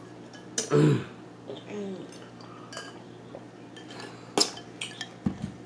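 Cutlery and dishes clinking during a meal: a handful of sharp clicks, the clearest about four and a half seconds in, over a brief voice sound near the start.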